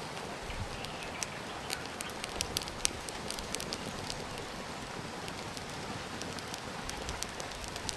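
Wood fire crackling in a clay stove: sharp irregular pops over a steady hiss, the pops most frequent in the first three seconds.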